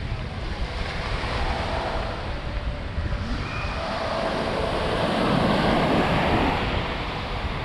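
Surf washing onto a beach, with one wave swelling louder about halfway through and then easing off, and wind rumbling on the microphone.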